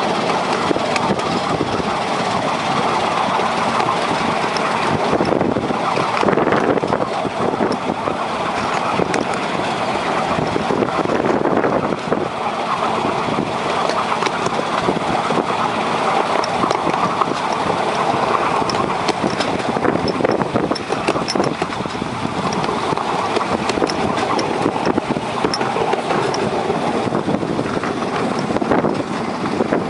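Miniature railway train running, heard from on board: the locomotive's small engine running steadily, mixed with the rumble of the wheels on the track.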